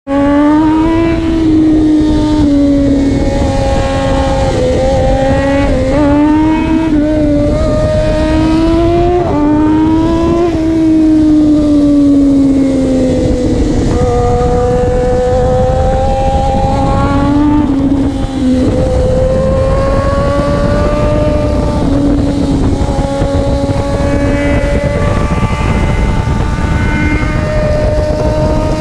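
Triumph Daytona 675 three-cylinder engine running through a Racefit slip-on exhaust with the catalytic converter still fitted, really loud. The revs rise and fall again and again, in short swells and in longer slow glides.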